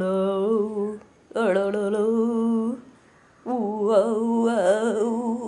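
A person humming three long notes, each held for a second or two with short breaks between, the last one wavering in pitch.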